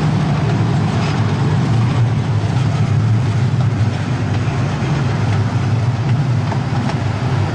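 Casey Jr. Circus Train ride train rolling along its track, a steady low rumble heard from aboard.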